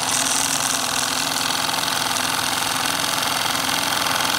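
Wilesco D10 model steam engine running steadily at a fast, even beat, with a loud rattle from its base vibrating on a ceramic tile.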